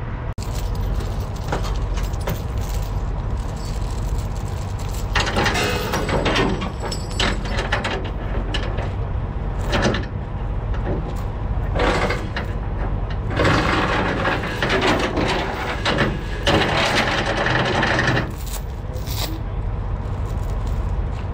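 Steel load-securement chains being pulled over a steel beam and along a flatbed trailer: loud rattling and clanking of chain on metal in several bursts a few seconds apart, over a steady low rumble.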